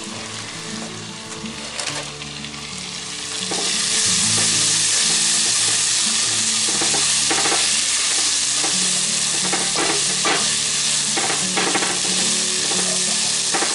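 Diced vegetables sizzling in hot oil and browned flour in a cast iron Dutch oven, the sizzle growing louder about four seconds in as they are turned over. Occasional clicks and scrapes of the tongs against the pot.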